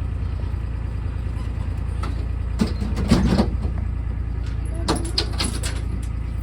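Themed ride train running along its track: a steady low rumble, with a few short knocks and clatters about halfway through and again near the end.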